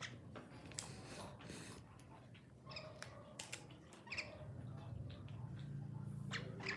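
Faint short squeaky chirps from caged common mynas, with scattered small clicks. A low steady hum comes in about halfway.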